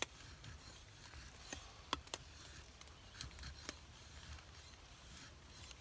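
ESEE Junglas blade shaving curls off a wooden stick to make a feather stick: faint short scraping cuts, a handful of strokes spread unevenly.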